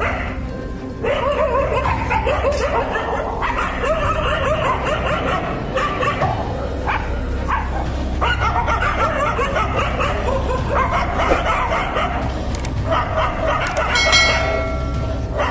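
Several Indian street dogs barking and snarling at one another in a standoff, their voices overlapping without pause from about a second in.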